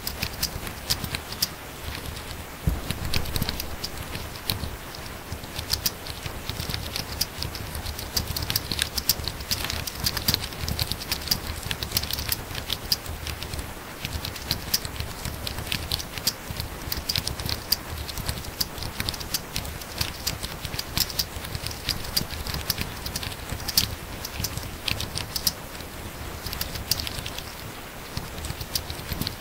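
Very fast typing on a laptop keyboard: a dense, unbroken run of key clicks.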